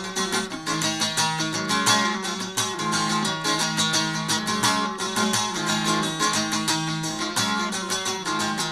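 Bağlama (long-necked Turkish saz) played alone in a quick strummed instrumental passage: rapid plucked strokes over a steady low drone of the open strings.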